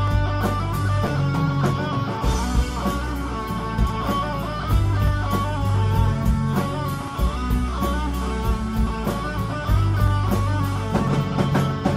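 Live rock band playing an instrumental passage with no singing: electric guitar and bass guitar over a steady drum beat, with a fiddle playing along.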